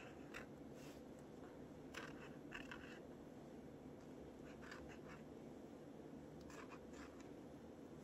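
Faint strokes of a marker pen drawing on a paper collage page: a handful of short, scratchy pen strokes at irregular intervals over quiet room tone.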